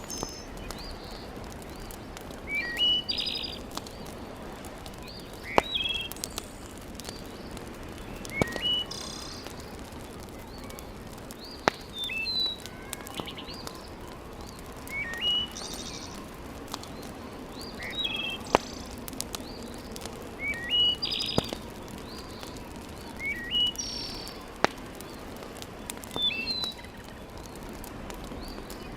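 A wood fire crackling with a steady hiss and about six sharp pops, while a bird outside repeats a short chirping phrase every two to three seconds.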